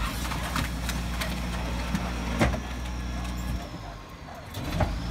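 Rear-loading garbage truck's diesel engine idling steadily, with sharp metallic knocks. The loudest knock comes about two and a half seconds in. The engine note dips for about a second near the end.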